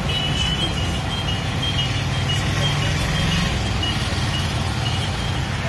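Steady street din with a low rumble, and a high, broken beeping tone running through it.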